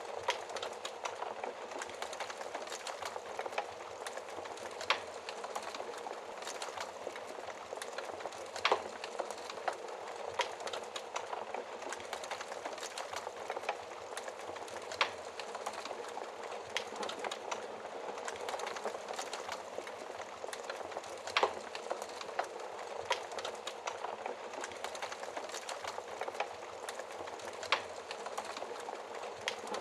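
Wood fire burning: a steady crackling hiss with sharp pops at irregular intervals every few seconds, a few of them louder than the rest.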